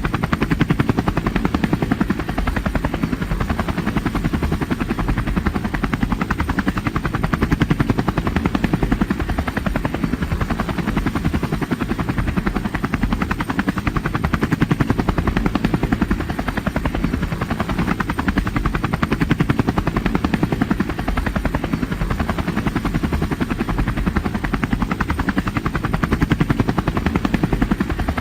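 Helicopter in flight: the rapid, even thudding of its rotor blades with engine noise, steady and unbroken, heaviest in the low end.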